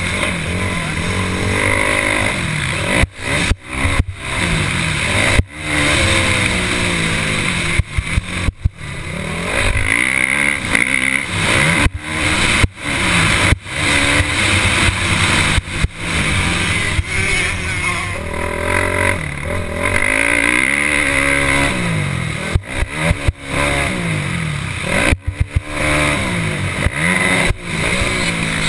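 Motocross bike engine revving hard and easing off again and again, its pitch rising and falling through the corners and straights, heard close up from the bike's own onboard camera. The sound cuts out for an instant many times.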